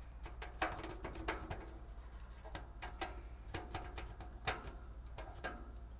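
Irregular light clicks and taps from hands handling the backboard and metal rack against the wall, over a steady low hum.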